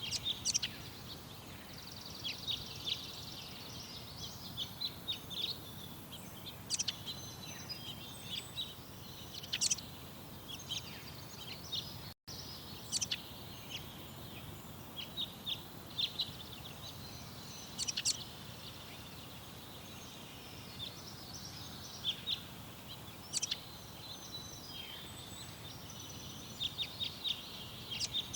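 Garden songbirds chirping and singing in many short calls and trills, over steady outdoor background noise. The sound cuts out for a moment about twelve seconds in.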